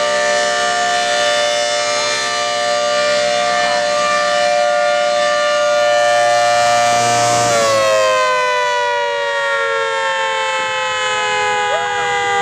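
Custom 10/12 Hurricane civil defense siren sounding its two-tone alert, a loud steady chord. About seven and a half seconds in, the power drops and the chord winds down, falling slowly in pitch: the end of the alert signal.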